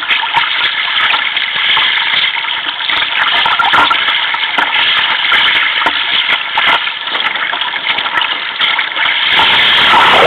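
Choppy sea water rushing and slapping against a sea kayak's hull, with many small splashes. About nine seconds in a wave breaks over the foredeck and camera, and the water sound grows louder and fuller.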